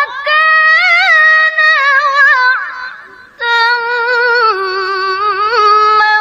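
A woman's voice reciting the Quran in melodic tilawah style, drawing out long ornamented notes with fine pitch turns. There are two phrases, with a short break for breath about three seconds in.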